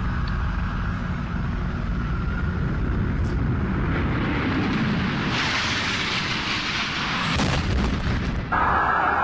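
A loud, low rumbling roar that builds over several seconds and peaks: jet engine noise and an explosion, typical of an airliner striking a World Trade Center tower. An abrupt cut near the end switches to a steady hiss.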